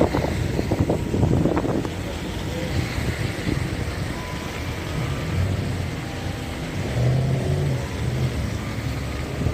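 City street noise: a steady low rumble of road traffic, with a few short knocks in the first two seconds.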